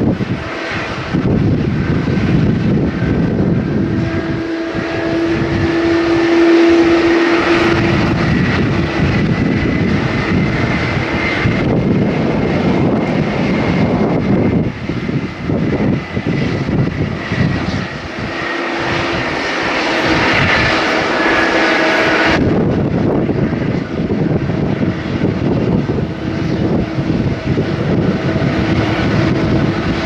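Jet airliner engines running at an airport apron, a loud steady noise with a low hum and a high whine that slowly rises and falls, then cuts off suddenly about three-quarters of the way through.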